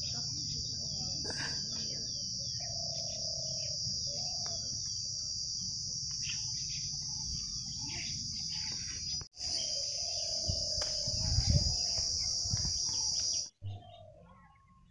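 Steady high-pitched insect drone with birds chirping over it. The drone drops out for an instant about nine seconds in and cuts off abruptly near the end. A brief low rumble comes about eleven seconds in.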